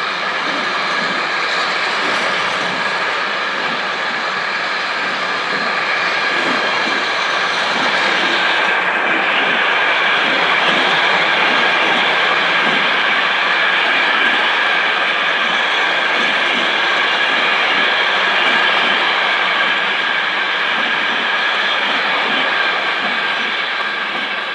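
Freight train of empty log wagons rolling past as it pulls away, wheels clattering over the rail joints in a repeating rhythm, with a steady high-pitched ringing from the wheels on the rails.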